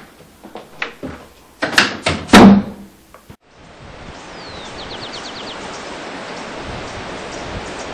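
Several sharp thuds in the first three seconds, the loudest about two and a half seconds in. Then a steady hiss, broken around five seconds in by a short descending chirp and a quick trill.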